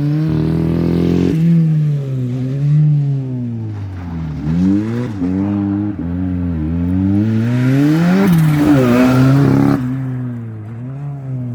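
A rally car's engine revving hard, then easing off, again and again, its pitch rising and falling with the throttle and gear changes. A hissing noise builds up with it about eight seconds in.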